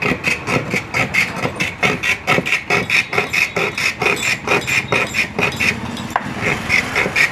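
A block of ice being shaved by hand on a bladed ice-shaving stand for a gola: quick rasping scrape strokes, about four a second, with a short break about six seconds in.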